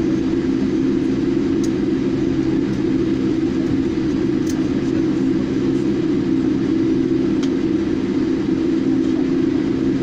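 Steady low drone inside a Boeing 787 Dreamliner cabin as the plane taxis, the engines and cabin air system humming evenly, with a few faint ticks.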